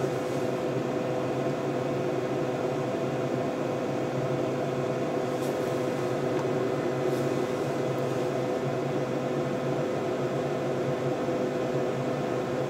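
Steady whir of running bench test equipment, cooling fans with a constant hum of several fixed tones under it. A couple of faint ticks come near the middle.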